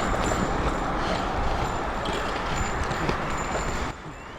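Steady rumble and hiss of road noise on a highway, which drops off abruptly near the end.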